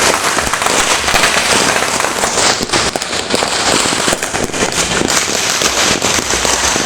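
Many firecrackers and fireworks going off at once in a dense, unbroken crackle of pops and bangs.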